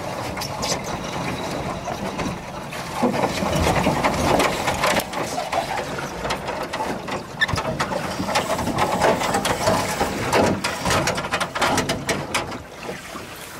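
Sea spray and water splashing against the camera, mixed with many small clicks and knocks. It grows louder and more uneven about three seconds in and eases near the end.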